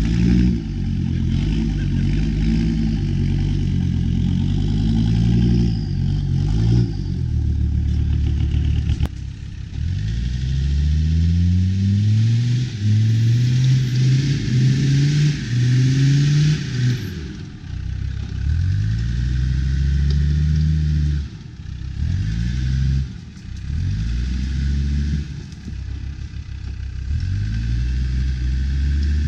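A Land Rover four-by-four's engine worked hard off-road, revving up and easing off over and over, its pitch climbing and dropping repeatedly with a few brief falls in loudness.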